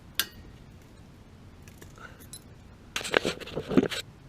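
Small metal parts clinking and rattling as the old water heater thermocouple and burner parts are worked loose by hand: one sharp click near the start, then about a second of clattering about three seconds in.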